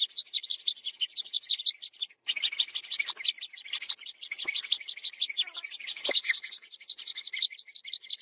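Rapid back-and-forth rasping strokes of hand abrading work, several a second and fairly even, broken by a brief silence about two seconds in.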